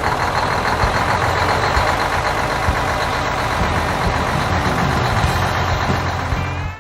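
A construction vehicle's engine runs steadily, a dense mechanical noise over a low hum, and eases off just before the end.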